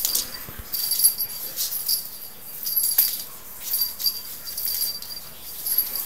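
A small bell jingling in short, repeated shakes as a kitten pounces on and bats a tinsel-cord toy with a fluffy pom-pom, with a few light knocks of paws and toy on the floor.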